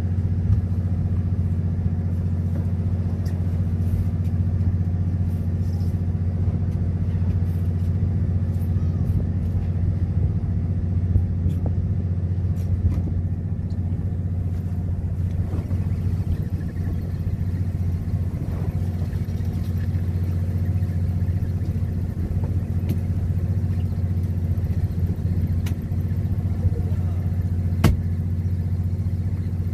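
Fishing boat's engine running with a steady low drone, plus a few sharp clicks, the clearest one near the end.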